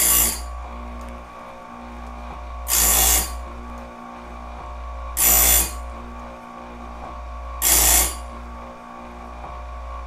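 Electric chainsaw sharpener, converted for band sawmill blades, running steadily with a coarse pink grinding wheel. The wheel is bumped against one blade tooth after another, giving a short grinding burst about every two and a half seconds as each tooth is sharpened.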